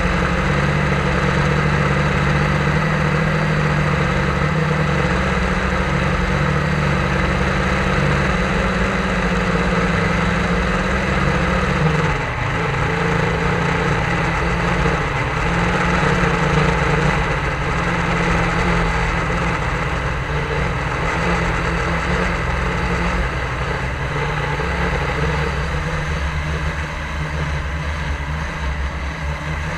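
Drone motors and propellers running with a steady, multi-toned hum. The pitch shifts briefly about twelve seconds in as the rotors change speed.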